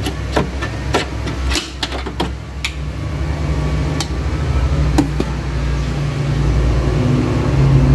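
Several sharp clicks and knocks of parts being handled in the first few seconds, then the steady low hum of a running vehicle engine that grows louder toward the end.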